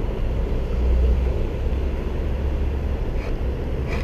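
Road traffic rumbling steadily, swelling a little about a second in.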